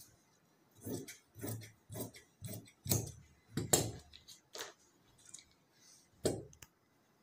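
About eight separate taps and knocks at uneven gaps from scissors and tailoring tools being handled on a cutting table during fabric cutting.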